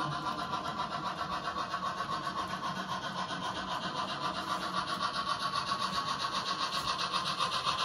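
On30 model steam train running along the track in a fast, even rhythm, growing louder as it approaches.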